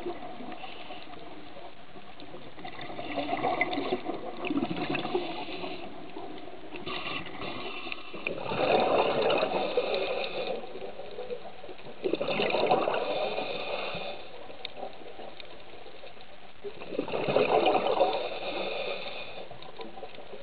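Scuba diver breathing through a regulator underwater: four bubbling bursts of exhaled air a few seconds apart, over a steady hiss.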